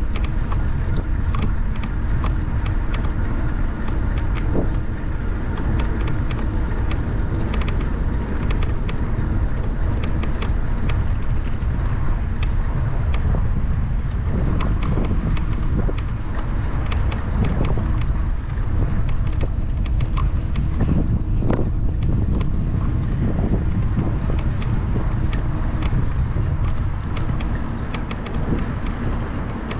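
Wind buffeting the action camera's microphone during a bicycle ride, a steady low rumble over the hum of the tyres, with frequent small clicks and rattles from the bike.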